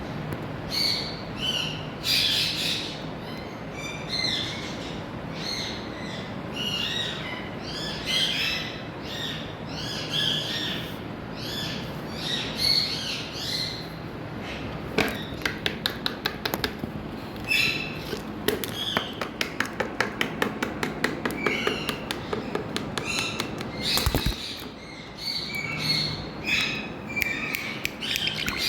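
Indian ringneck parakeet giving repeated short, high, bending calls. A fast run of clicks comes in the middle, and a brief loud rush of noise follows a little later.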